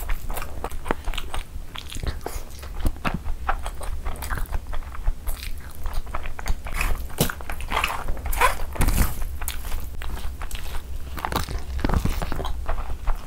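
Close-miked chewing of curry-soaked rice eaten by hand, with many irregular wet clicks from mouth and fingers as handfuls are scooped and taken in.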